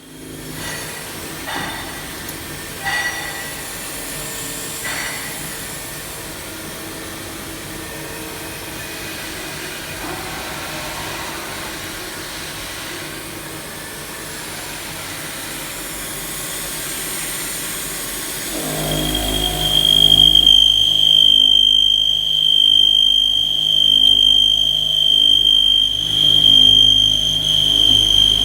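CNC milling machine thread-milling an M24 thread: a steady machining hiss with a few light knocks, then about 19 s in the cut becomes louder, with a steady high-pitched whine over a low rumble.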